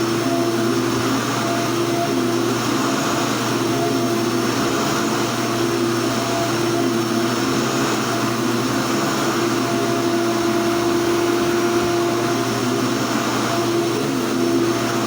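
Dirt Devil upright vacuum cleaner running steadily at full speed: even, loud air noise with a steady high whine over a low motor hum.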